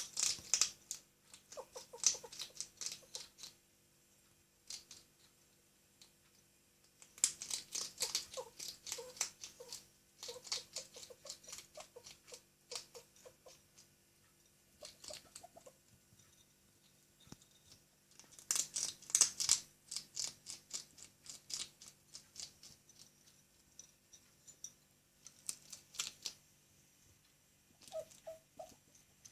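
Hedgehog eating cat food: bouts of crunching, chewing and smacking lasting a few seconds each, separated by short quiet pauses.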